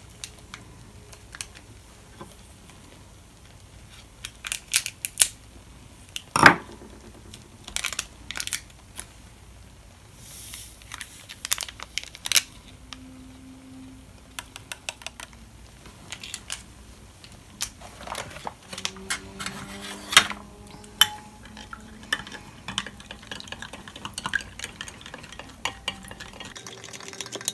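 A spoon stirring powdered drink mix into a tumbler of water, clinking against the inside of the glass in irregular taps, with one louder knock about six seconds in.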